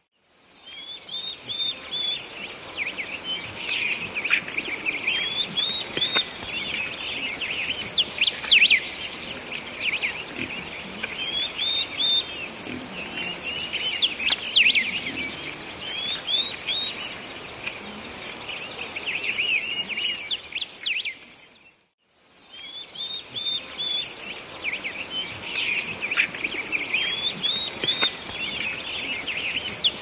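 Recorded birdsong ambience: many short chirps and trills from several songbirds over a steady high hiss. The recording cuts to silence for a moment about 22 seconds in and then starts over.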